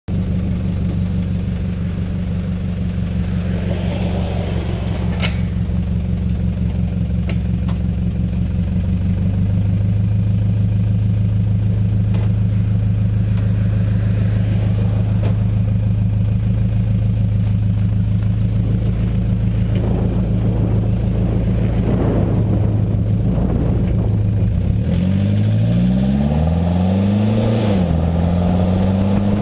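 Toyota Prado 150 SWB diesel engine idling through a TaipanXP 3-inch aftermarket exhaust with a Vortex muffler and rear resonator, with wind buffeting the microphone. About 25 seconds in it is revved twice, the pitch rising and falling, then settles back to a slightly faster idle.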